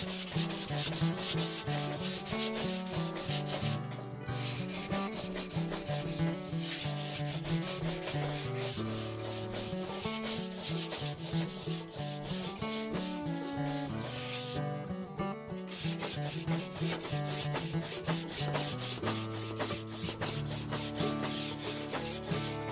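Hand sanding of a glued bamboo fly-rod blank: sandpaper rubbed back and forth in quick, even strokes to take off the enamel and excess glue, pausing briefly twice. Background music with a changing bass line plays underneath.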